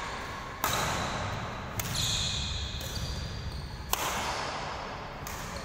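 Badminton rackets striking a shuttlecock in a rally, four sharp cracks a second or two apart, each echoing in the large hall.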